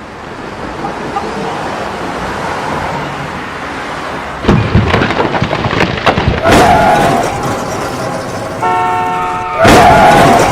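Cartoon sound effects: a rumbling noise that builds, broken by several loud crashes, with a brief horn-like tone just before the loudest crash near the end.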